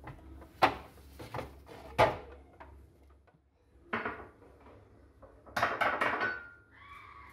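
Dishes and utensils being handled in a kitchen: a few sharp knocks in the first two seconds, another about four seconds in, then a short run of quick clinks.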